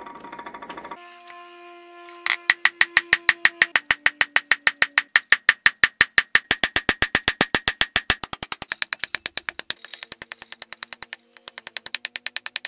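Hand hammer striking hot steel bar on an anvil in rapid, evenly spaced blows, about six a second, each with a bright metallic ring. The blows start about two seconds in and grow lighter after about eight seconds, with a short break near the end.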